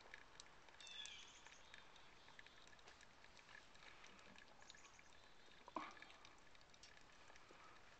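Near silence with faint scattered ticks, a short high chirp about a second in, and a single soft knock near six seconds.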